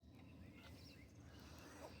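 Near silence: faint outdoor ambience with a low steady rumble and a few faint, distant bird chirps.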